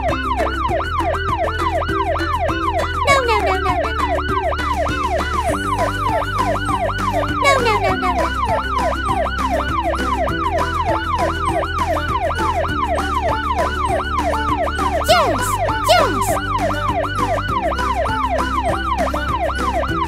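Electronic yelp siren, sweeping up and down rapidly about three times a second, over background music with a steady beat. A few falling whistle-like glides and short clicks come through.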